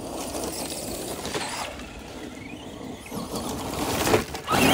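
Electric RC monster trucks driving over wood chips: motor whine rising and falling with the throttle over the hiss of tyres in the chips. It grows loudest near the end as the Traxxas Stampede passes close.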